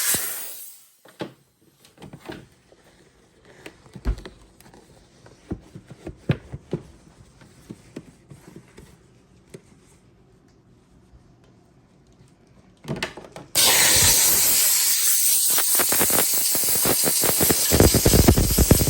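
Dupray Hill Injection steam cleaner jetting steam in a loud steady hiss that dies away about a second in. Several seconds of quiet follow, with scattered light knocks and clicks. About two-thirds of the way through, the steam hiss cuts back in abruptly and loud.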